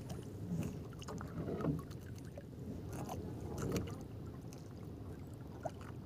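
Water splashing around a small fishing boat: a few irregular splashes and knocks over a low, steady background rumble.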